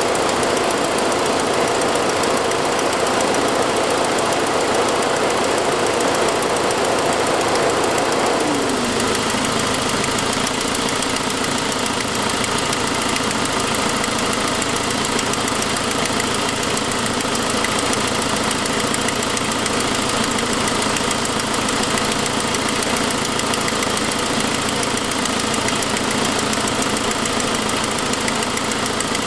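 2006 Saab 9-5 engine idling with a ticking from an exhaust leak, caused by a broken forwardmost exhaust manifold stud. The pitch drops about nine seconds in and then holds steady.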